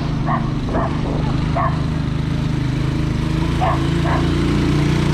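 A dog barking in short, separate barks: a few in the first two seconds and two more later, over a steady low engine drone.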